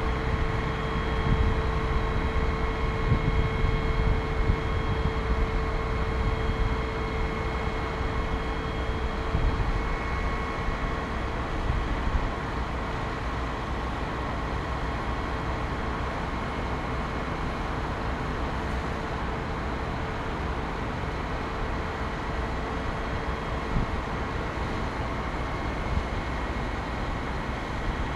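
Steady running hum of a fire-service aerial ladder truck, with several held whining tones over it. Wind gusts on the microphone add a low, uneven rumble for roughly the first twelve seconds, then the hum goes on more evenly.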